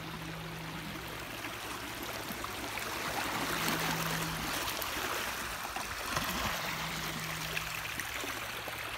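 Shallow sea water washing and trickling over rocks at the shoreline, a steady watery wash that swells a little midway.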